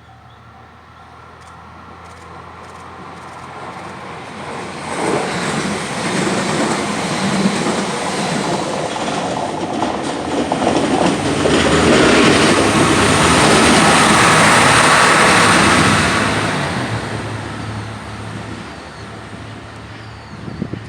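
A KiYa 141 diesel track-inspection train and a three-car 227 series electric train passing each other over a level crossing. The engines hum and the wheels run on the rails, growing sharply about five seconds in, loudest just past the middle, then fading away.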